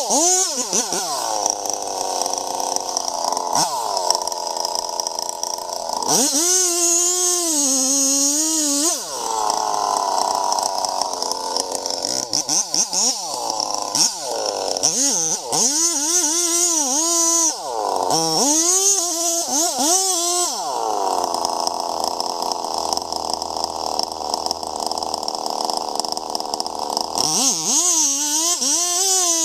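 Chainsaw engine running, its pitch repeatedly dropping and swinging back up as it is throttled, with longer stretches of steadier, noisier running in between.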